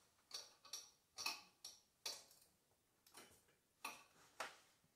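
About eight faint, irregular clicks and light taps of parts and tools being handled by hand at a lawn tractor's engine, with near silence between them.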